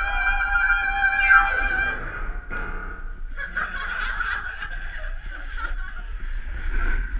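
A high, wavering sung note is held, then slides down in pitch and breaks off about two seconds in. After a short gap people laugh.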